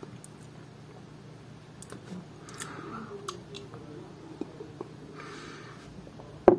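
Quiet sipping and swallowing as a person tastes drinkable yogurt from a glass, with small mouth clicks and a soft breath, then one sharp knock near the end.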